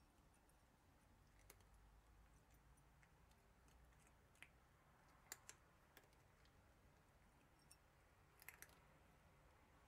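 A cat crunching dry kibble: a few faint, sharp crunches spread out, with a quick cluster of them near the end, over a near-silent background.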